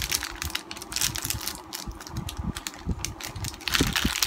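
Plastic packaging crinkling as a new laptop hard drive is handled and unwrapped from its bag, with irregular small clicks and rustles that get busier near the end.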